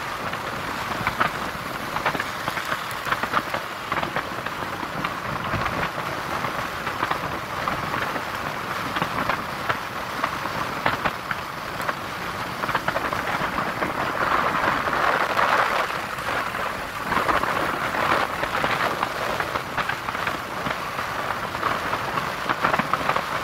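Wind rushing and crackling over the phone microphone while riding a motor scooter at road speed, with the scooter's own running and road noise mixed in underneath. Steady throughout, swelling briefly about two-thirds of the way in.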